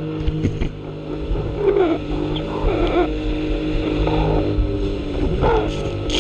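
Sea-Doo jet ski engine running at speed with a steady drone, with repeated splashes of water and spray as the hull crosses the chop.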